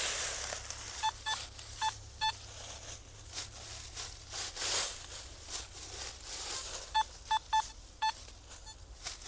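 Metal detector sounding short beeps of one steady pitch as the coil sweeps back and forth over a buried target, a cluster of four about a second in and another around seven seconds in. Between them, dry leaves rustle as the coil and feet brush through the undergrowth.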